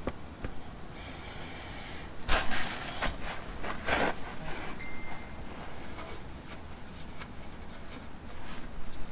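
A rag and paper towel wiping and rubbing around a motorcycle's sump plug and engine underside, with short rustling rubs about two and a half and four seconds in, and small scattered ticks.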